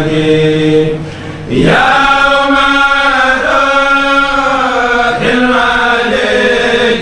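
A Mouride kourel of men chanting khassaid verses in unison without instruments, on long held and sliding notes. The voices thin out briefly about a second in, then swell into a new phrase.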